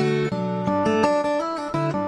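Background music led by guitar: plucked chords changing in a steady rhythm.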